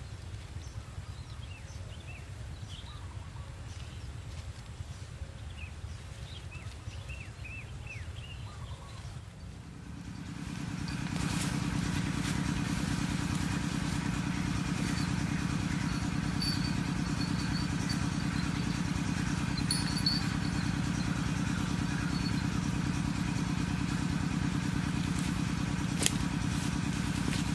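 A small engine comes in about ten seconds in and then runs steadily at an even pitch. Before it there is a low rumble with faint short chirps.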